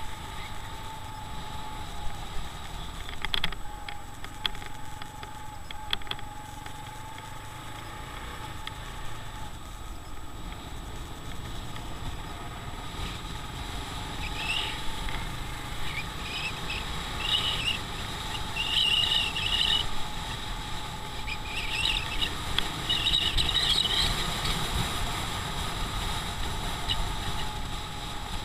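Motorcycle riding in city traffic, heard from the bike: engine running with a steady whine over wind and road noise. From about halfway through to near the end, short high chirping sounds come and go.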